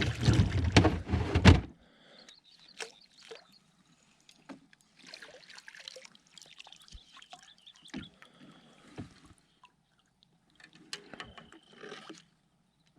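Water splashing as a hooked bass is landed beside a kayak, loud for the first second or so. Then come scattered quiet knocks, clicks and drips as the fish and tackle are handled on the kayak.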